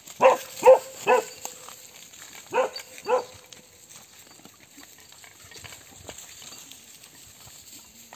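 A dog barking five times: three quick barks, then two more about a second and a half later.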